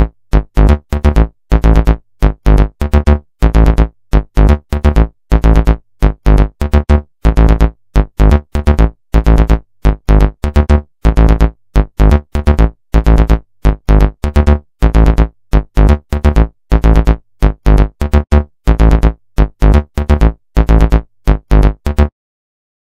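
Morse code sent as a low buzzing tone: a long run of short and long beeps with gaps between, keyed on and off at one pitch, stopping about a second before the end.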